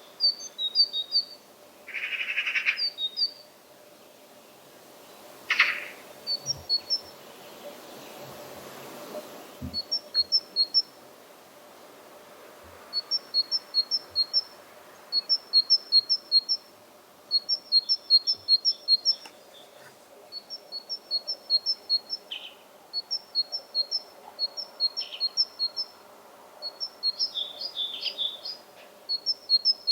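Great tit singing its two-note "tee-cher" song: a high note then a lower one, repeated in strings of several phrases with short pauses between. Two short, harsher bursts come about two seconds in and again near six seconds.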